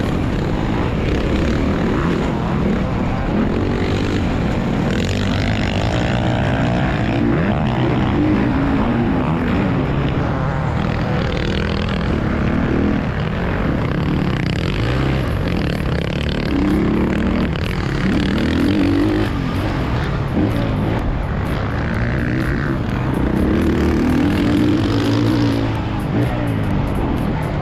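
Motocross bike engine revving hard and falling off again every couple of seconds as it is ridden around a dirt track, with wind rushing over the microphone.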